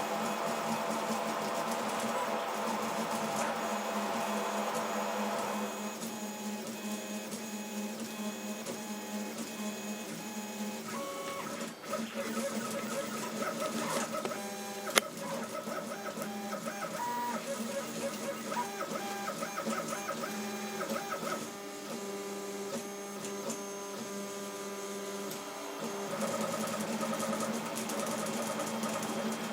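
CoreXY 3D printer's stepper motors running through a test move, whining in held tones that jump to new pitches as the head changes speed and direction. One sharp click about halfway.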